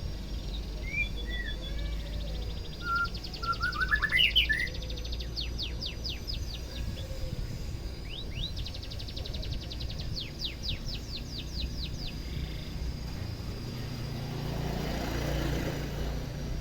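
White-rumped shama singing: scattered whistles and quick rising notes, loudest about four seconds in, then rapid trills and fast downward-sweeping notes that stop about twelve seconds in. A steady low rumble runs underneath, and a swell of rushing noise comes near the end.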